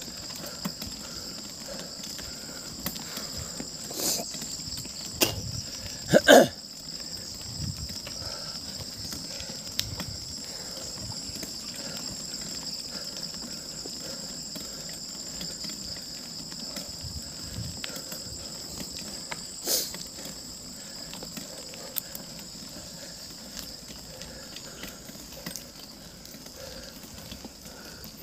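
Steady high-pitched insect chorus, a shrill drone in two pitches, with a few sharp knocks, the loudest a double knock about six seconds in.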